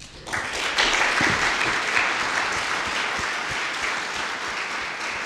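Audience applauding, starting about a third of a second in and going on steadily.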